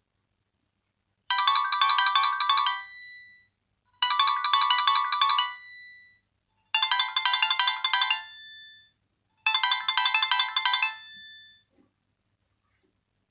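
Nokia 2600c mobile phone playing a ringtone through its speaker: a short, quick run of notes ending on a held note, repeated four times about every two and a half seconds, starting about a second in.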